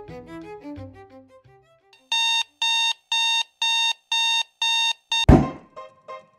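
Digital alarm clock beeping, about two evenly spaced beeps a second, then a loud thump as a hand slaps it and the beeping stops.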